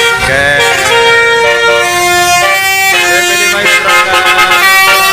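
Telolet horn on a U Trans bus: a loud multi-tone air horn playing a melody. Several notes sound together and change pitch in steps every fraction of a second.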